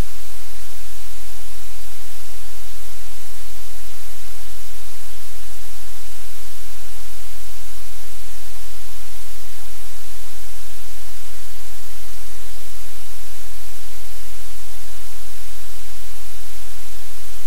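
Loud, steady hiss of white noise, even across all pitches, with a low hum beneath and nothing else standing out.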